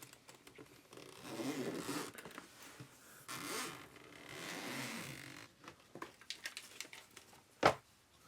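Close handling noise: three long swishing, sliding sounds like a zip or packaging being pulled, then a run of light clicks and one sharp, loud click near the end.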